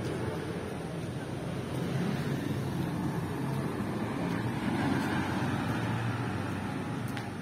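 Steady low rumble of distant street traffic, with no single sound standing out.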